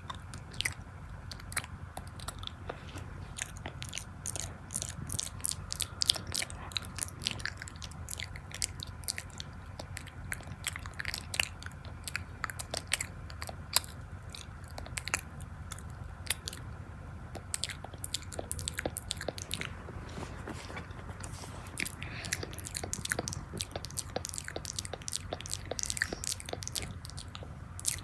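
A person chewing and biting crunchy food close to the microphone, with dense, irregular crisp crunches and mouth clicks.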